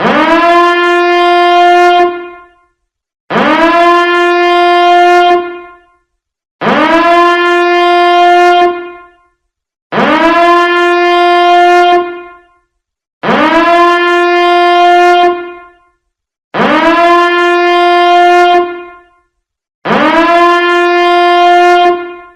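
Biohazard alarm sounding a loud, repeating horn-like tone: seven identical blasts of about two and a half seconds, one every three and a third seconds. Each blast swoops briefly up in pitch at its start, then holds one steady note.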